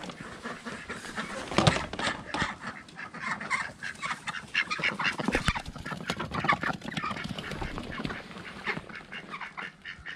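A small flock of backyard ducks, white-crested and khaki Campbell-type, quacking rapidly and continuously, many calls overlapping. A sharp knock about two seconds in comes as the wooden, glass-paned coop door is pulled open.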